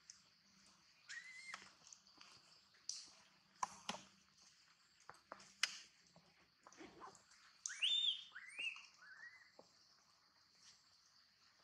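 Baby long-tailed macaque squealing: one short rising squeal about a second in, then three in quick succession past the middle, each lower than the last. Scattered clicks and a steady high hiss run underneath.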